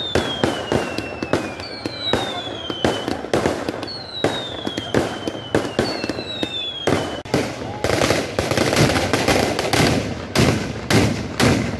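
Fireworks going off: a rapid run of sharp bangs and crackles, with four whistles that each fall in pitch over the first seven seconds. From about eight seconds in, the bangs come thicker and louder.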